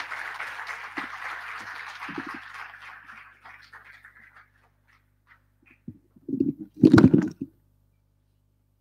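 Thin applause from the audience, fading out over the first four seconds or so. Then a few sudden loud thumps about six to seven seconds in.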